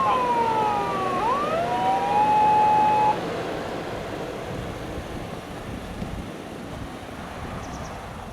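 Electronic siren of a 2008 Toyota HiAce High-Medic ambulance, run through its siren amplifier and roof speaker: steady tones and sweeping rising and falling tones, cutting off suddenly about three seconds in. After that only a steady low noise remains, slowly fading.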